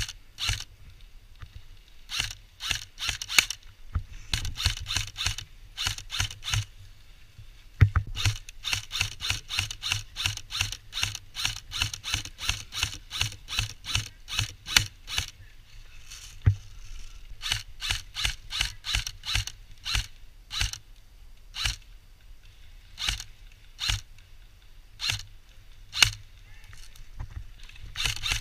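Airsoft electric guns firing: sharp, clicky shots in strings and bursts, with the heaviest firing from about 8 to 15 seconds in and scattered shots elsewhere.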